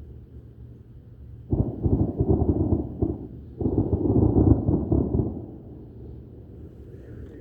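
Two loud, low, rumbling booms, the first about a second and a half in and the second a couple of seconds later, each rolling on for over a second before dying away.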